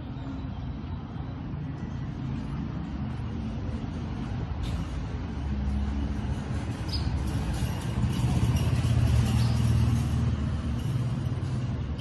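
Low engine rumble of a motor vehicle, swelling to its loudest about two-thirds of the way through and easing off near the end, with a few faint clicks.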